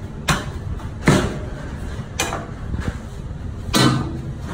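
Knife work on a large raw beef rib roast on a plastic cutting board: four sharp knocks and scrapes, the loudest near the end, over a steady low hum.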